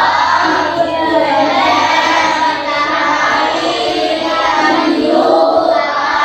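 A class of young schoolchildren singing a song together, many voices in unison.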